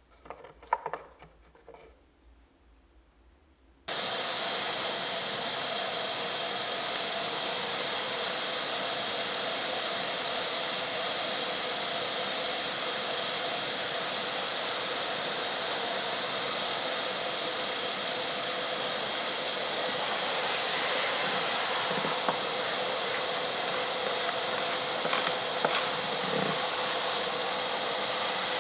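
A few faint handling clicks, then about four seconds in a small electric appliance switches on abruptly and runs steadily with a rushing hiss and a constant whine.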